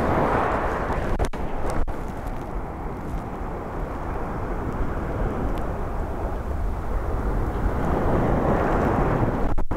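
Waves breaking and washing on a shingle beach, with wind rumbling on the microphone. The wash swells near the start and again near the end.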